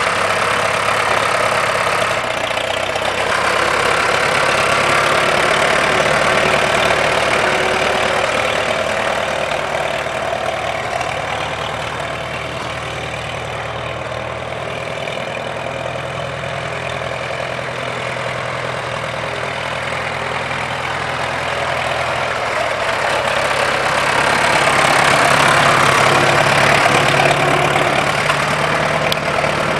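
Farmall M tractor's International 4.1-litre four-cylinder gas engine running steadily as the tractor is driven away and back, growing fainter around the middle and louder again near the end.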